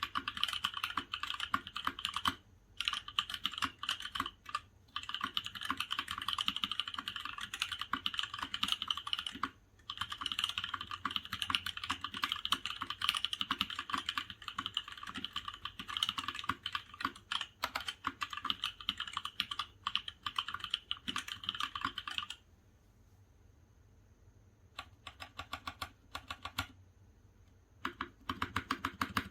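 Typing on a gasket-mounted aluminium/polycarbonate Mark 65 mechanical keyboard with stock, not broken-in Kailh Cream switches and PBT Cherry-profile keycaps. Fast continuous typing with a few brief pauses gives way after about 22 seconds to fainter, scattered single keystrokes. Faster typing resumes near the end.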